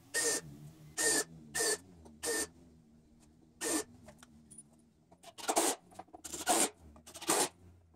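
Cordless drill running in about nine short bursts, countersinking holes and driving wood screws into 2x4 and 2x6 lumber.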